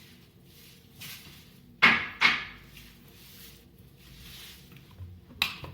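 Kitchen handling sounds during cream whipping: two sharp knocks close together about two seconds in and another near the end, with soft swishing between them.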